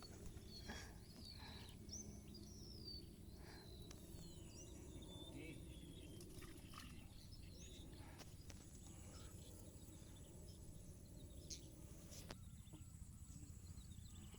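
Near silence: faint open-air ambience with a low steady hiss, and a bird chirping several short, high calls in the first half.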